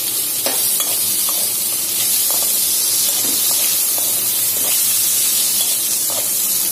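Shallots, garlic, tomato and dried red chillies sizzling steadily in hot oil in a metal kadai, with a steel spatula stirring and scraping against the pan now and then.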